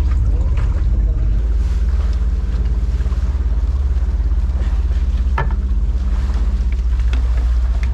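Boat engine running steadily under way, with a haze of wind and water noise over it. A single sharp knock about five and a half seconds in.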